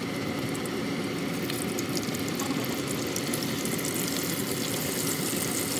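Hot grease sizzling and crackling in a frying pan as strips of raw bacon are laid in, over a steady low hum.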